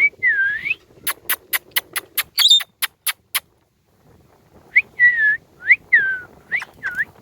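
Ringneck parakeet giving short whistled calls that bend up and down in pitch, one at the start and a quick series of about six in the second half. In the middle comes a run of about ten sharp clicks, with a higher call among them.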